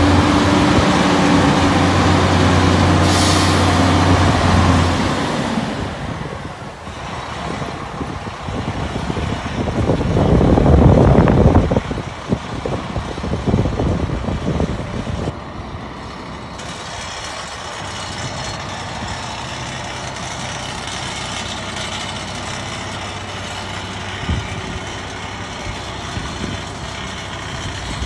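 Terberg RT382 terminal tractor's diesel engine running as the tractor drives. A brief hiss of air comes about three seconds in, and a loud rush of noise comes around ten to twelve seconds in. After that the engine runs more quietly and steadily.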